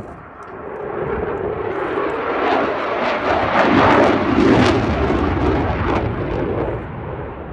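A Eurofighter Typhoon's twin Eurojet EJ200 turbofans: loud jet noise swells to a peak about four seconds in, with a ragged crackle at its loudest, then dies away near the end.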